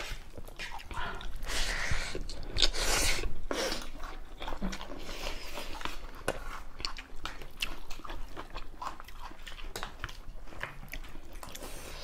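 Close-up eating sounds: chewing and biting of rice and pork, with short clicks of spoons and forks on plates. The eating is busiest about two to three and a half seconds in.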